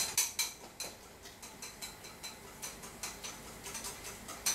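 A whisk beating pancake batter in a bowl: a steady run of light clicks, about three a second, as the whisk strikes the side of the bowl, with a sharper click near the end.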